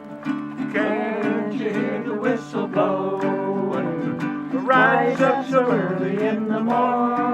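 Singing to a strummed acoustic guitar: the guitar strums steady chords under a sung melody.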